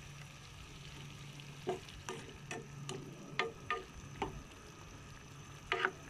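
Black plastic spatula knocking and scraping against a nonstick pan of fish and chayote simmering in broth, about eight light knocks spread over the middle and two close together near the end, over a low steady hum.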